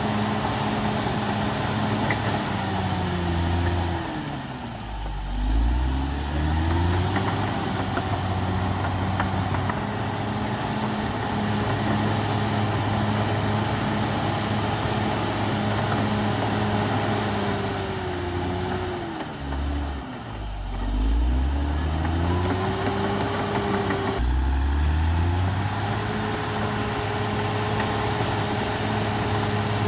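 Caterpillar D6R XL bulldozer's diesel engine running under work. Twice the engine note sinks and climbs back again, about four seconds in and again near twenty seconds in.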